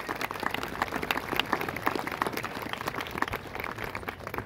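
Audience in the stands applauding, a dense patter of many hands clapping that dies down near the end.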